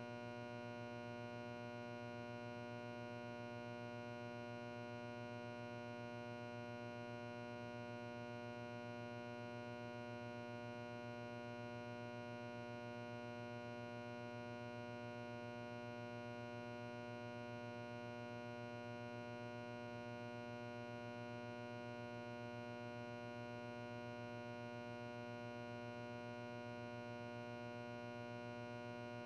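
Steady background music: a held synthesizer drone of several low and middle tones, unchanging throughout.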